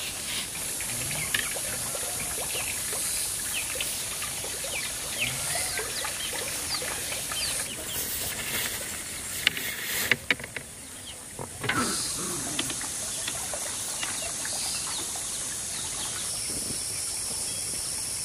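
Garden ambience: insects droning in a steady high tone with many short bird chirps over it. A few sharp clicks or knocks come near the middle.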